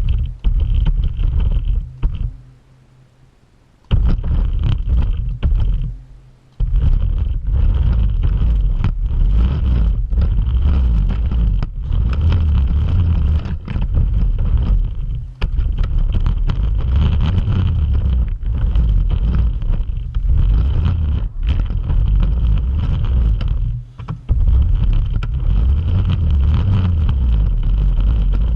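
Electric RC car driving across the floor: motor and gears whirring with a loud rumble of wheels and bumps. It runs in spurts, stopping about two seconds in, starting again about four seconds in, and pausing briefly twice more.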